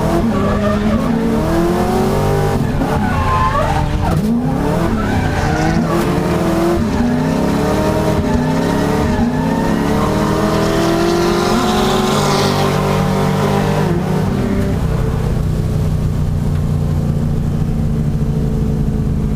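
Drift cars' engines revving up and down hard, with tyre squeal from the sliding cars. From about two-thirds of the way through, the revs settle and hold steadier.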